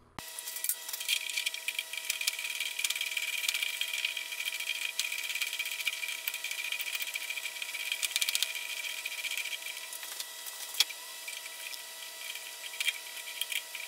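Small metal clicks and taps of a hex key and hands working the cap screws of a 5C collet chuck mounted on a bench lathe, over a steady hum with a few fixed tones.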